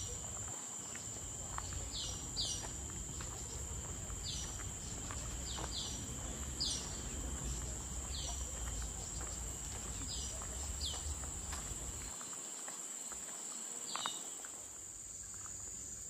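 Forest insects keep up a steady high-pitched buzz while a bird repeats short descending calls every second or two, often in pairs. A low rumble sits underneath and stops about twelve seconds in.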